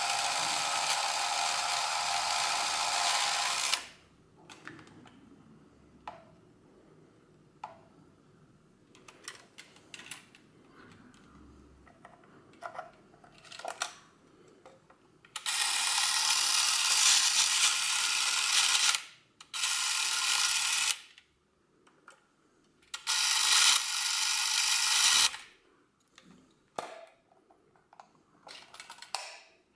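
A Canon Auto Zoom 814 Super 8 camera's electric motor running in short spells: one run cuts off about four seconds in, then small clicks of switches and handling, then runs of a few seconds each in the middle and latter part.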